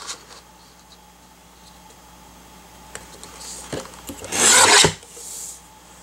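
Westcott paper trimmer cutting a sheet of scrapbook paper: a short rasp as the blade is drawn through the paper about four and a half seconds in, followed by a fainter scrape.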